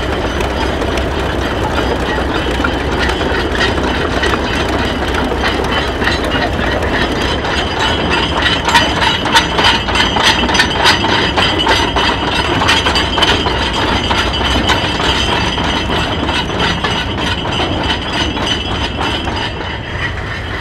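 Antique Allis-Chalmers tractor engine running as the tractor goes by, with a fast run of metallic clanks and clicks, loudest about halfway through.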